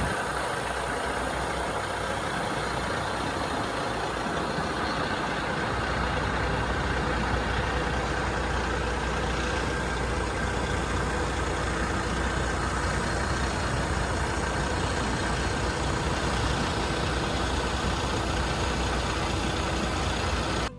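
Heavy farm machinery engine running steadily, with a deeper low rumble that grows stronger about six seconds in.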